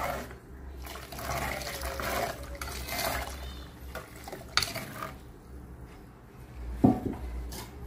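Water pouring from an enamel pot into a clay pot of curry gravy, splashing for about four seconds while it is stirred in with a steel spoon. Two sharp clinks of the spoon against the pot follow in the second half.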